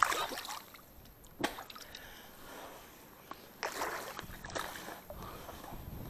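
Water splashing and sloshing in three short bursts, near the start, about a second and a half in, and around four seconds in, as a bottom fishing line (donka) is hauled in from the river. A low rumble sets in for the last couple of seconds.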